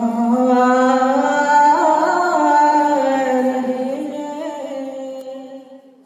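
A single voice singing long, drawn-out notes of a naat, the pitch gliding slowly between held tones, fading out over the last couple of seconds.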